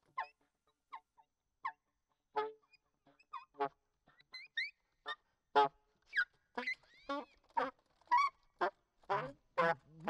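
Saxophone played in short, separate honks and squeals with brief gaps between them, a few notes bending up into high squeals. The notes come closer together and louder near the end.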